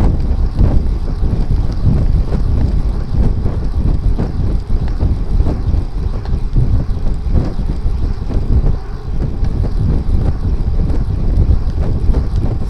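Wind buffeting the microphone of a Fly6 rear-light camera on a moving road bicycle: a continuous low rumble that flutters unevenly, with no clear tones.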